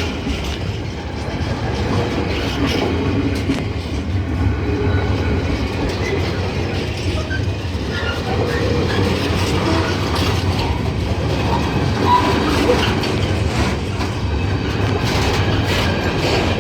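Freight train wagons rolling very slowly past: a steady low rumble with scattered clicks from the wheels on the rails.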